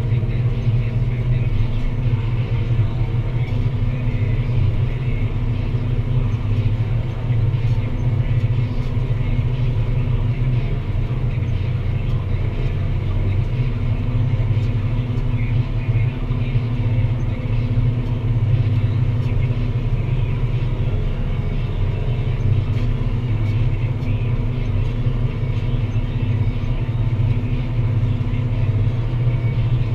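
Deutz-Fahr Agrotron 165 MK3 tractor's six-cylinder diesel engine running steadily under load while pulling a plough, a deep even drone.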